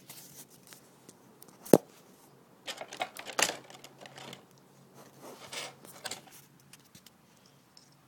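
Small plastic toy pieces and packaging being handled: scattered clicks, taps and rustling, with one sharp click about two seconds in and a busier cluster a second or so later.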